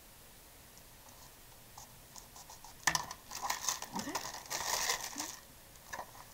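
A small sketchbook being picked up off the craft mat and handled: a sharp click about three seconds in, then a couple of seconds of paper and tissue-paper rustling and crinkling, with another light click near the end.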